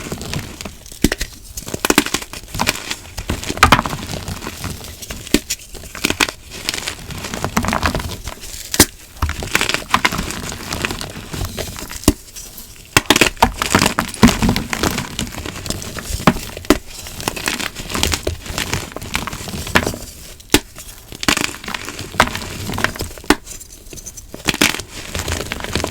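Glitter-topped gym chalk blocks being crushed and crumbled: dense, irregular crunching and crackling, with short lulls between handfuls.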